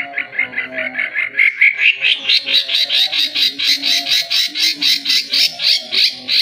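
White-rumped shama (murai batu) singing a fast run of short, repeated upswept notes, about six a second, climbing in pitch and growing louder about two seconds in. A lower, rougher chatter sounds beneath.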